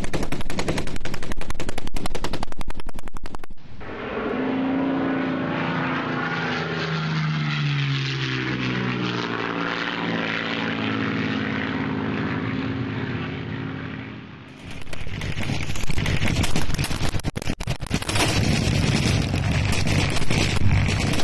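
Rapid automatic gunfire from machine guns for the first few seconds, then about ten seconds of a low-flying aircraft passing over, its engine pitch sliding down as it goes by. Near the end, sustained rapid machine-gun fire resumes.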